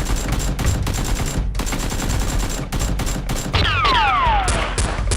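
Rapid automatic gunfire: a dense, continuous stream of shots. About three and a half seconds in, several whistling tones slide downward over the shooting.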